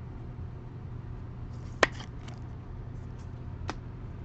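Two sharp clicks, one about two seconds in and a softer one near the end, with a few faint ticks, from trading cards and their packs being handled, over a steady low electrical hum.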